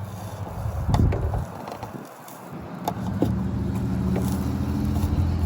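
A few sharp plastic clicks and knocks as a washer-fluid sprayer nozzle is worked loose from the underside of a truck hood. About three seconds in, a steady low engine-like hum starts and keeps going.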